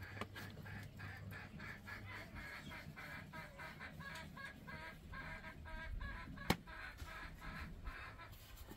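A domestic hen clucking in a long run of short notes, about four a second, with one sharp click about six and a half seconds in.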